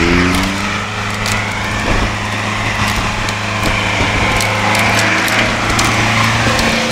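Land Rover Series III's engine held at high revs as its tyres spin and churn through deep mud, with scattered sharp cracks of twigs and brush breaking under the vehicle.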